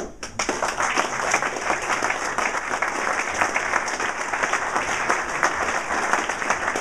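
Audience applauding: a few scattered claps, then steady applause within the first second.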